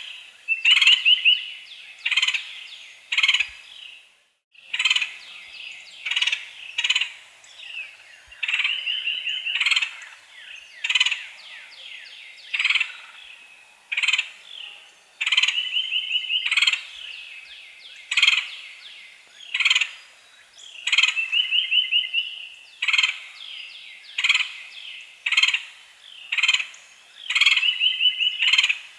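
Woodpecker calling: sharp single notes about once a second, broken every few seconds by a quick chattering run of repeated notes.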